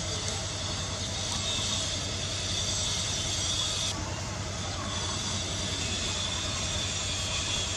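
Steady outdoor background noise: a continuous hiss with a thin high drone over a low hum. The high drone drops out briefly about four seconds in.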